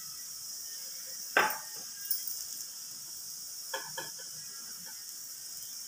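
Metal utensils clinking while ghee is spread on a paratha on the tawa: one sharp knock about a second and a half in, then two light ringing taps around four seconds in. A steady high hiss runs underneath.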